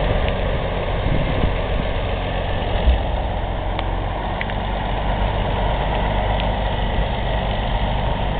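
Wheel loader's diesel engine running steadily as it pushes a wooden narrow-gauge boxcar along the track, with one low knock about three seconds in.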